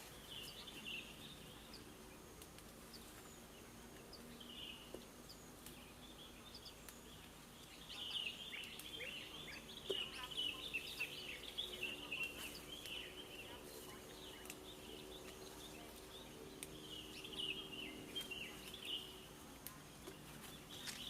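Small birds chirping in quick bursts, busiest in the middle of the stretch, with a few soft clicks and a faint low hum behind.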